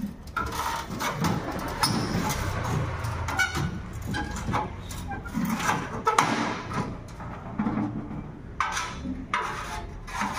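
Irregular knocks and clatter of sheet metal being worked by hand on a workbench.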